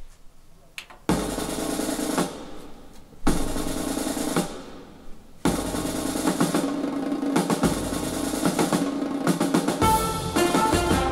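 Drum-led music with snare drum and percussion, played back from a Kenwood DPF-1030 CD player through Royd Audio Coniston R loudspeakers and picked up by a microphone in the room. It starts about a second in, dips twice briefly, then plays on steadily.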